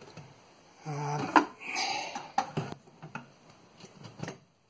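Steel scraper blade clicking and scraping as it is worked under the edge of a chipboard benchtop against the metal oven trim, with a sharp clack about a second and a half in and scattered small clicks after. A short grunt is heard just before the clack.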